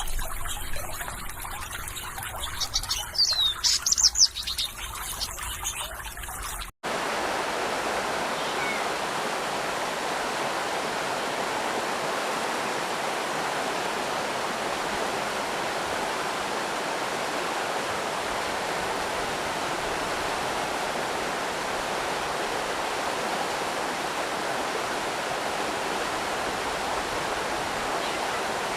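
Water trickling with a few high bird chirps around three to four seconds in; after a brief dropout about seven seconds in, a steady, even rush of flowing stream water.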